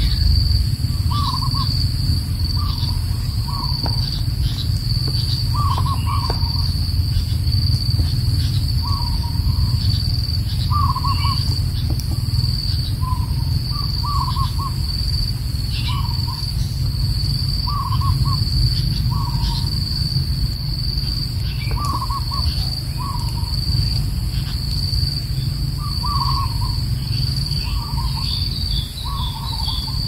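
Steady high-pitched insect trill, with short low call notes, often in pairs, repeating every second or two over a low rumble.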